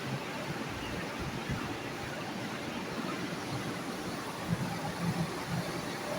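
Steady rushing hiss of nitrogen gas flowing from a cylinder through the charging hose into a chiller, pressurising it for a leak test.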